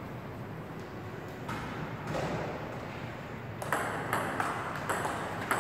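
Table tennis ball being hit back and forth in a rally, clicking off the paddles and bouncing on the table. A quick, uneven run of sharp ticks starts about halfway through.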